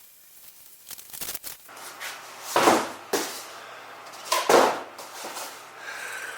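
Cardboard packaging being handled and opened: a few light clicks and rustles, then two loud, short rasping rips or scrapes about two seconds apart, with a smaller one between them.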